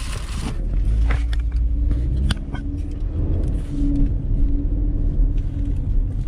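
Low rumble of a car heard from inside its cabin, with a few sharp clicks and a brief hiss near the start.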